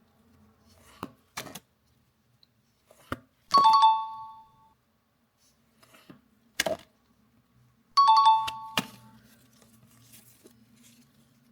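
A two-note ding-dong chime sound effect, the second note slightly lower, played twice about four and a half seconds apart, each ringing for about a second. Between them come several sharp clicks and taps.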